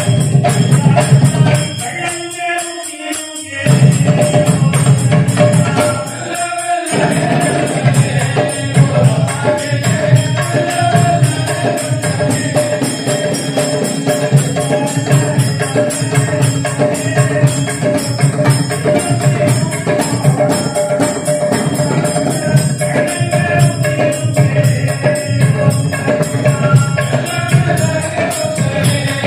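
Devotional bhajan music: group chanting-style singing over a mridangam drum and jingling small cymbals. It drops briefly twice within the first seven seconds.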